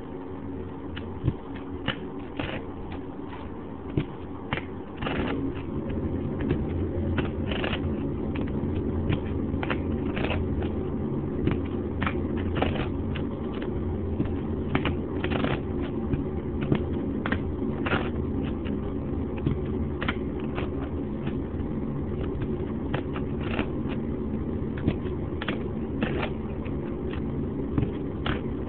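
Poker chips being shuffled by hand, clacking sharply as the stacks riffle and fall together, about once every second, over a steady low rumble that grows louder about five seconds in.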